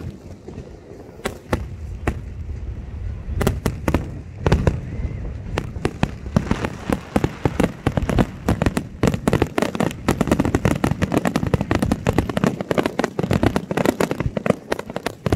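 Aerial fireworks bursting: a few sharp bangs in the first seconds, then a dense barrage of bangs and crackling from about six seconds in.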